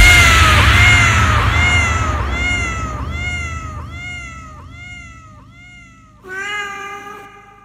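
Sampled cat meow in a dubstep track, repeated about every two-thirds of a second and fading away together with a low bass tone. About six seconds in, a single longer, steadier meow sounds.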